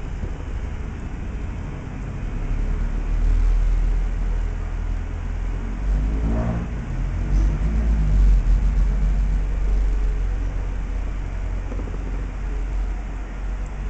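Steady low rumble that swells around the middle, with a brief rising-and-falling sound about six and a half seconds in.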